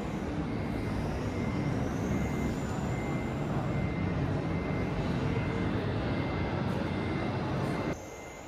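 Traxxas TRX-4 RC crawler driving, its Hobbywing Fusion brushless motor and geartrain giving a high whine that rises in pitch as it speeds up, over a steady rumble. A short beep repeats about once a second. The sound drops off abruptly near the end, leaving a quieter hum.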